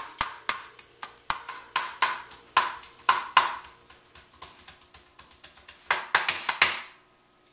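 Knives chopping diced bell peppers and onion on a plastic cutting board: a run of sharp knocks at an uneven pace, bunching into a quick flurry near the end and then stopping.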